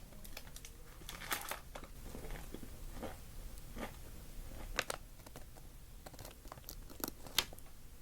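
McDonald's paper food wrapping crinkling and tearing as it is handled, with a few sharp crackles and crunching bites and chewing.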